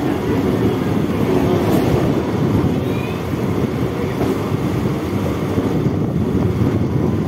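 EMU electric local train running at speed, heard from its open door: a steady rumble of wheels on rail with wind buffeting the microphone.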